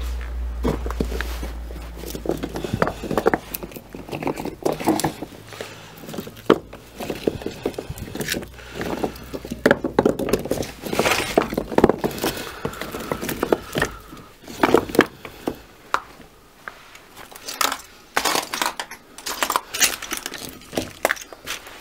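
Clay blocks knocking and clinking against one another as they are handled and shifted in a heap: a long run of irregular sharp knocks and scrapes, with a low rumble in the first few seconds.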